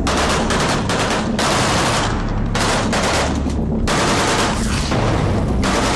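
Automatic weapons firing in several long bursts of rapid shots, over a steady low rumble.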